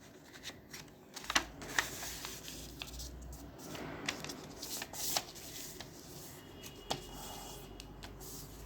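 A sheet of paper being handled and folded by hand: scattered crisp rustles and short taps as it is opened out and creased into a triangle fold.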